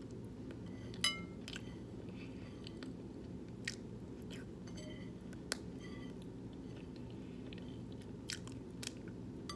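A person chewing a last mouthful of spaghetti and vegan meatballs: scattered soft wet mouth clicks and smacks over a faint steady low hum.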